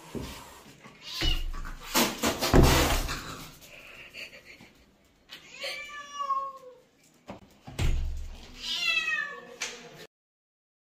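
Defensive mother cat warning off a dog: a few loud harsh hisses, then two drawn-out yowls that fall in pitch.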